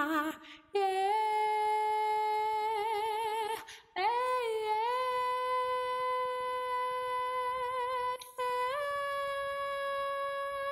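A woman singing long wordless held notes, three in a row, each a little higher than the one before, with vibrato coming in near the end of each note and short breaths between them.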